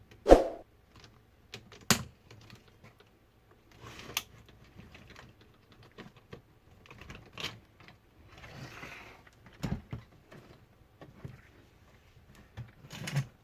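Irregular clicks, taps and a short scrape from the plastic casing of an HP Pavilion 15 laptop being handled and pried loose by hand. There is one louder knock right at the start.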